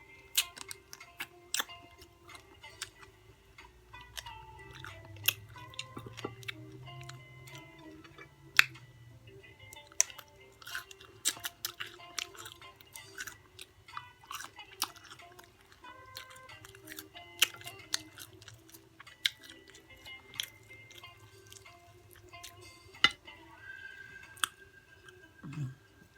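A person chewing and smacking on extra-crunchy fried chicken close to the microphone, with sharp, irregular crunches and mouth clicks throughout. Faint background music plays underneath.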